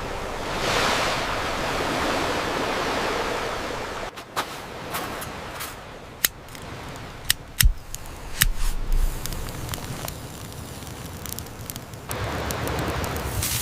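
Campfire crackling: a steady rushing hiss, then from about four seconds in scattered sharp pops and cracks, several of them loud, before the hiss returns near the end.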